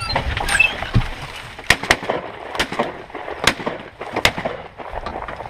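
A volley of shotgun shots from several hunters, about six sharp blasts spread over five seconds, as birds come in.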